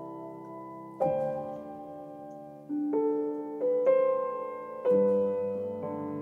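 Piano playing slow, soft chords, a new chord struck every second or so and left to fade.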